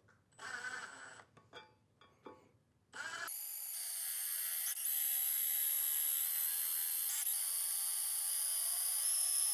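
Milwaukee M18 Fuel impact driver turning a 7/32-inch titanium-coated drill bit into half-inch steel angle iron. It gives a short burst about half a second in and a few light clicks, then a steady high-pitched whine from about three seconds in that grows slightly louder. The bit is cutting smoothly through the metal.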